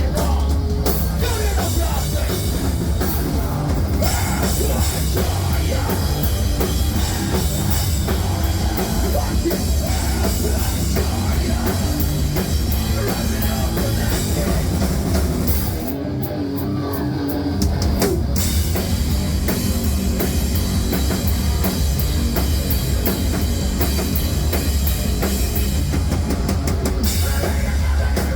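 A heavy hardcore-metal band playing live, loud, with drum kit and crashing cymbals. Just past halfway the drums and cymbals drop out for about two seconds, then the full band comes back in.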